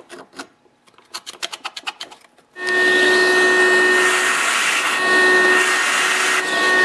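A slotted screwdriver scrapes carbon deposits off a two-stroke chainsaw's exhaust port in short strokes. About two and a half seconds in, a shop vac starts and runs steadily, its hose sucking the loosened carbon out of the port.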